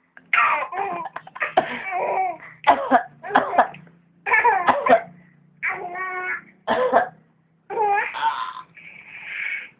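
A person giving repeated put-on coughs, with a baby laughing in reply between them.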